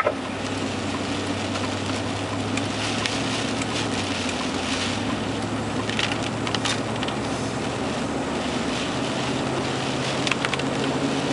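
A vehicle running: a steady low hum over an even rushing noise, the hum shifting a little higher about nine seconds in.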